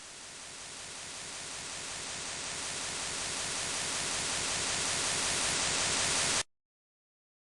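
A steady hiss of noise, like static, that swells gradually louder for about six and a half seconds and then cuts off abruptly.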